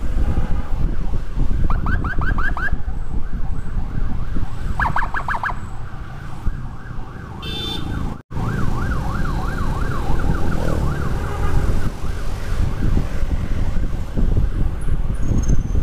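Electronic emergency siren sounding in rising-and-falling sweeps: two short bursts of fast yelps, then a run of slower up-and-down sweeps, over a steady low rumble of wind and engine on a moving motorcycle. The sound cuts out for an instant about eight seconds in.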